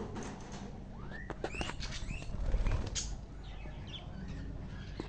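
Budgerigars chirping in short rising calls, mixed with sharp clicks and a louder muffled thump about two and a half seconds in.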